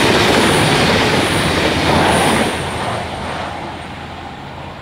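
V/Line VLocity diesel multiple unit passing close at speed, its wheels and carriages making a loud rushing rumble. The noise drops off sharply about two and a half seconds in as the train draws away, then keeps fading.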